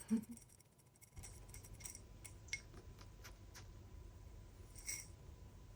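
A feral pigeon pecking at snack food, giving a few scattered light clicks and taps, with a brief low sound at the very start.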